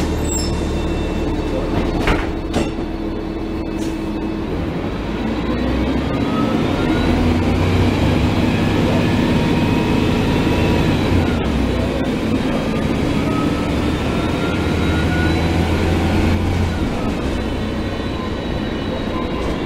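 Gillig Phantom transit bus's Cummins ISL diesel and Voith automatic transmission pulling away and accelerating, with a rising whine that drops back about halfway through and climbs again. Two short knocks come about two seconds in.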